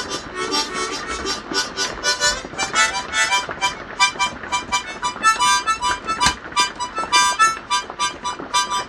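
Harmonica playing a quick melody of short, rapidly changing notes.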